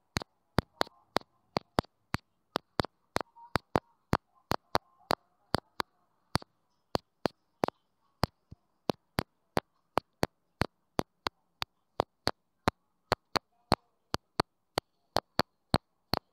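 A rapid series of sharp clicks, about three a second and fairly evenly spaced, over a faint background hum.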